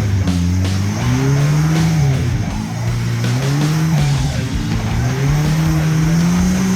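Off-road 4x4's engine revving up and down, its pitch rising and falling every second or two.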